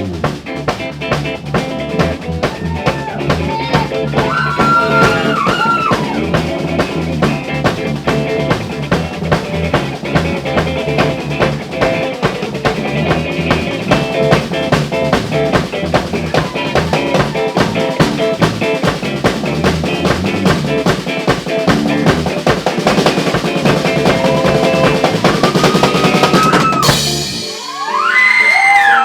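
Live band playing an instrumental: a drum kit keeps a busy, steady beat of snare, rimshots and bass drum under guitar lines with bent notes. Near the end the low end drops away and the guitar notes ring on.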